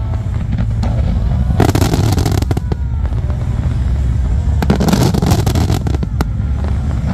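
Aerial fireworks bursting and crackling over a continuous low rumble, with a dense cluster of crackles about two seconds in, another about five seconds in, and a single sharp crack near the end; music plays underneath.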